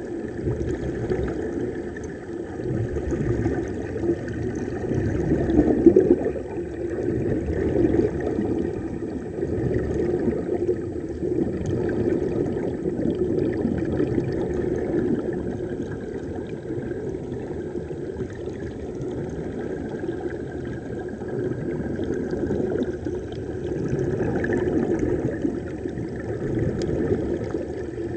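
Steady, muffled rushing of water picked up by a camera held underwater, swelling briefly about six seconds in.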